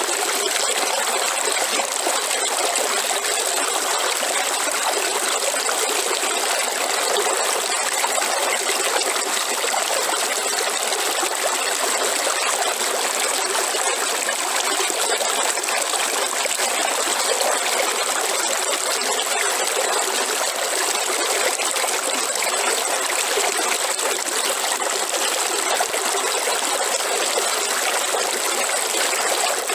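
River water flowing steadily, an even trickling hiss with little low rumble.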